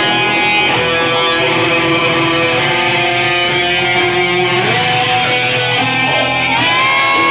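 Music led by electric guitar playing sustained notes. Near the end a held high note slides up, holds, then falls away.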